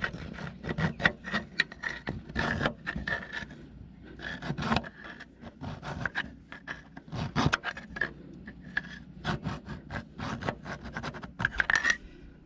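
Hand file rasping back and forth in uneven strokes on a metal nut, filing down a raised spot and burred edges so a wrench will fit it.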